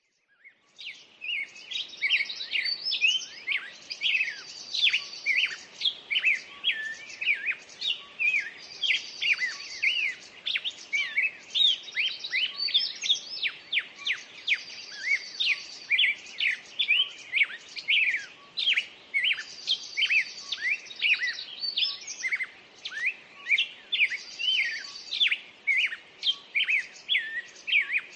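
Dawn chorus of several songbirds: dense, overlapping chirps and whistled notes, with a trill that comes back every few seconds.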